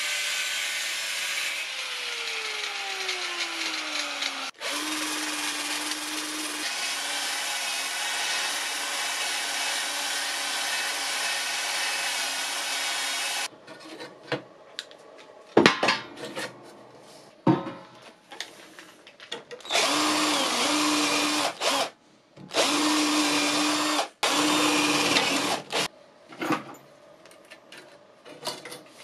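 Angle grinder running against the steel of an oven pan. About two seconds in its motor winds down, falling in pitch, then it starts again and runs steadily until about halfway. After that a power tool runs in short bursts of a second or two, with scrapes and clicks between.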